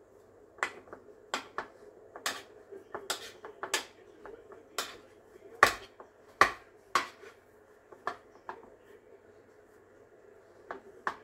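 A big spoon clicking and knocking against a ceramic loaf dish as bread dough is pressed flat inside it: a run of sharp, irregular clicks, loudest about halfway through.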